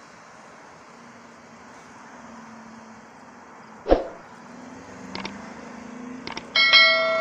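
Steady hum of distant traffic, then end-screen sound effects: a sharp thump about four seconds in as the title appears, two pairs of quick mouse-click sounds, and a notification bell ding near the end that rings on.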